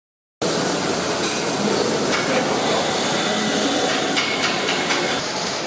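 Arc welding: a loud, steady crackling hiss of the welding arc, starting abruptly about half a second in.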